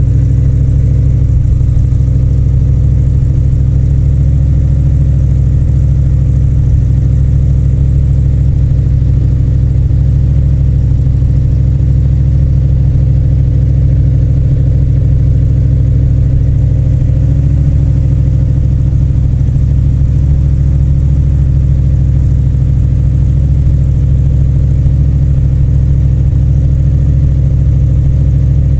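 1971 Plymouth 'Cuda engine idling steadily with a low rumbling sound, still warming up after a cold start following a week of sitting.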